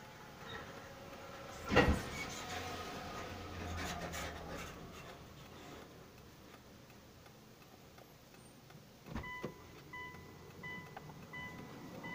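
A single thump about two seconds in, followed by handling noise inside a car. From about nine seconds a car's electronic warning chime beeps repeatedly, about twice a second.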